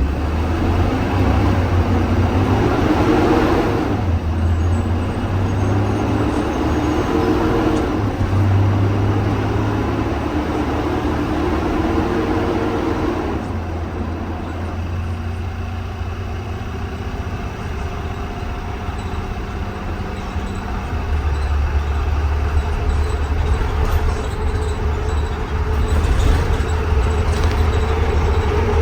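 Blue Bird Vision school bus engine and road noise heard from inside while driving: a steady low drone whose engine note shifts several times in the first half, then settles into a lower, even hum.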